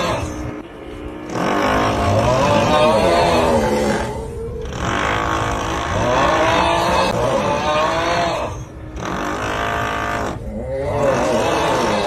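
The 'Uuuuuugghhhhhh' snoring meme sound: a long, drawn-out groaning snore that repeats about every four seconds, over a constant background of drilling.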